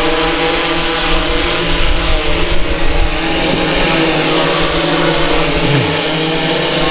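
DJI S1000 octocopter's eight electric motors and propellers hovering in flight: a steady, multi-tone buzzing hum.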